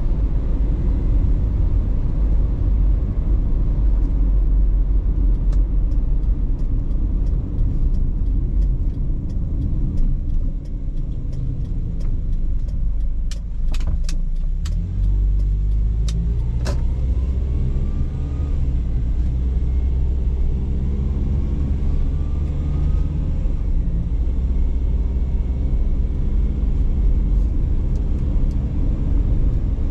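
Car driving, heard from inside the cabin: steady low road and tyre rumble with the engine underneath. About halfway through the car eases off, with a few sharp clicks, then pulls away with the engine pitch rising through the gears.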